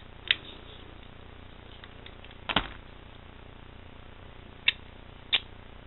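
Four sharp, spaced-out clicks from a Tacforce folding knife being handled while its pivot screw is adjusted and the blade's play is checked.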